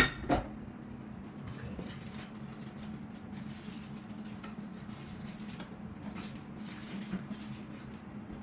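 Two sharp knocks about a third of a second apart as the ceiling fan's light cover is twisted onto its housing, followed by faint scraping and handling noises.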